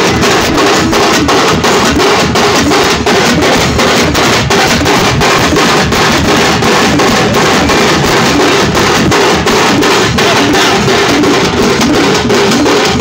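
A percussion band playing: several stick-beaten drums with white heads and a pair of large brass hand cymbals clashing together in a fast, loud, driving rhythm.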